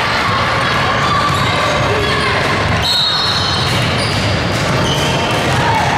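Basketball game in a gym: a basketball dribbling on the court over a steady background of voices, with a few short high squeaks about halfway through.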